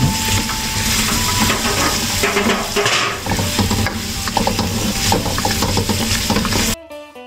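Onion wedges and carrot slices sizzling in hot oil in a wok while a spatula stirs them, scraping and clacking against the pan. The sizzling cuts off suddenly near the end.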